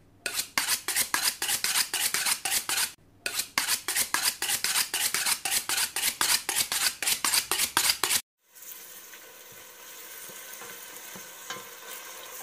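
Rapid, rhythmic clatter of a kitchen utensil, about four strokes a second, with a short break near three seconds, cutting off abruptly after about eight seconds; then a steady frying sizzle.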